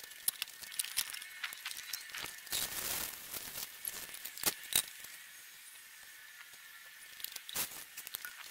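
Boots crunching on gravel and scattered clicks and knocks as a garden hose and a plastic bucket are handled, with a short hiss of water from the hose while the bucket is rinsed out.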